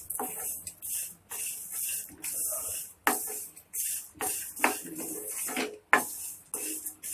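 A spatula stirring and scraping dry-fried flattened rice around a metal kadai: a rhythmic series of short scraping strokes, about two a second, with light clinks against the pan.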